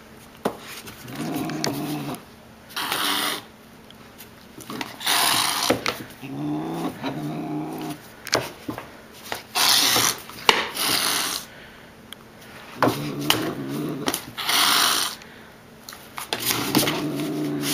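A calico cat and a Doberman puppy play-fighting: several low, wavering growls, each about a second long, alternate with sharp hissing bursts from the cat, with light taps of paws on tile and cardboard between them.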